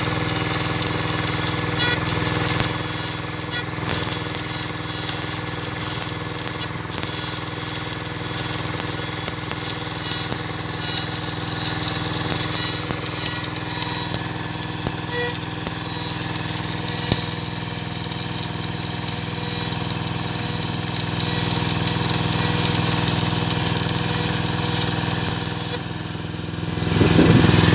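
An engine running steadily, its speed and loudness rising about a second before the end.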